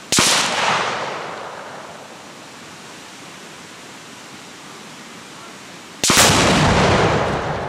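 Two blasts: a sharp bang at the start that echoes and fades over about a second and a half, then about six seconds in a heavier explosion with a long, low rolling rumble, an exploding target going off in the field.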